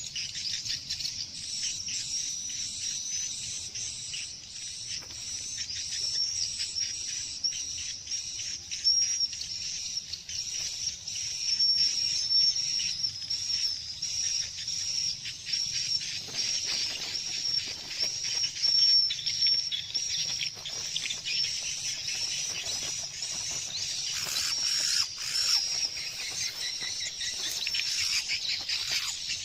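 Small bird chirping rapidly and repeatedly in high-pitched notes, with a few louder calls in the second half.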